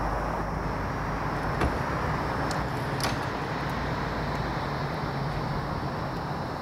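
Steady road traffic noise, a continuous rumble and hiss of passing vehicles, with a few faint clicks.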